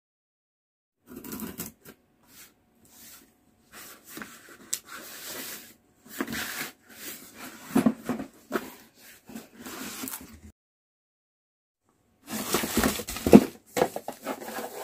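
Unboxing handling: a cardboard shipping box being moved and opened, with scraping and rustling in irregular bursts. After a short break, louder crinkling of the plastic bag wrapped around a UV nail lamp as it is lifted out of the box.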